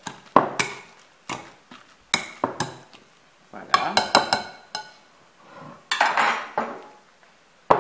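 Wire potato masher knocking and scraping against a glass mixing bowl while mashing boiled sweet potato, in irregular clinks with a quick cluster partway through and a sharper knock near the end.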